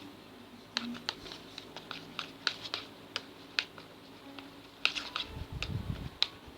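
Slime mixture of glue and foam being stirred in a container: irregular small sticky clicks and taps, with a duller low bump of handling between about five and six seconds in.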